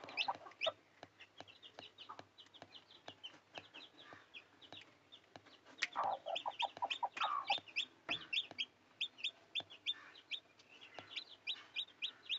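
Chickens: chicks cheeping in rapid short high peeps, several a second, with louder, lower clucking in bursts at the start and again about six to seven and a half seconds in.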